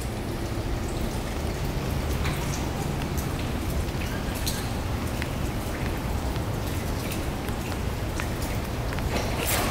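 Scattered water drops pattering onto the canal surface, heard as irregular light ticks over a steady low rumble.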